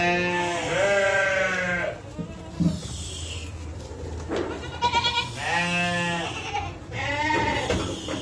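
Flock of small livestock bleating: a long, wavering bleat right at the start, then two shorter bleats near the end.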